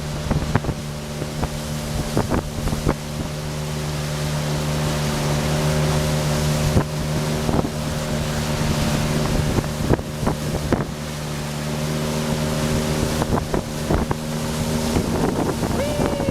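Speedboat engine running steadily at cruising speed, under loud rushing wind and water noise with frequent short sharp knocks.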